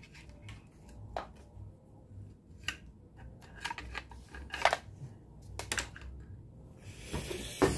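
Scattered light clicks and rustles of a thin wire and its small plug being handled, with a louder rustling scrape near the end.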